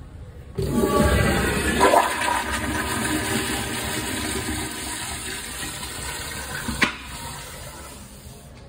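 Commercial Kohler toilet with a manual chrome flushometer valve flushing. Water rushes loudly into the bowl just after the handle is pressed and runs steadily for about six seconds. A sharp click near the end, as the valve shuts, is followed by the flow trailing off.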